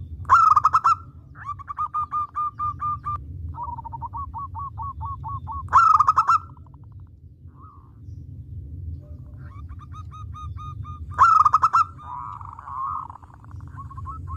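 Zebra dove (perkutut) cooing: three loud calls about five and a half seconds apart, with rapid, even strings of short coos between them. A steady low rumble runs underneath.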